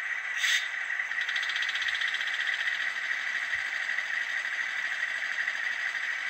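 Diesel engine sound of a Fleischmann BR 112 (V100) N-gauge model's DCC sound decoder, idling steadily through its tiny thin-sounding speaker. About half a second in there is a short sharp hiss, followed by a rapid fine rattle for about a second and a half, from the decoder's coupling sound function.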